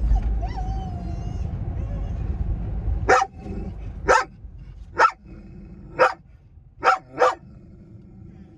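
Dog in a car, whining over the low rumble of the car, then barking six times roughly a second apart, the last two close together. The rumble drops away as the barking starts, about three seconds in.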